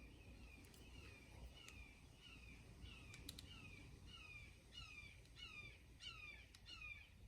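A bird calling faintly over and over, a quick run of short downward-sliding notes, about two to three a second, with a few faint clicks.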